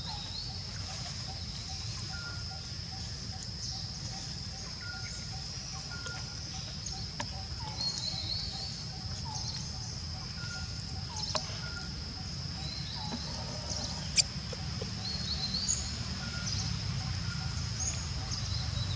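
Outdoor ambience: a steady high insect drone with scattered bird chirps, short repeated calls and a steady low rumble underneath. A single sharp click about fourteen seconds in.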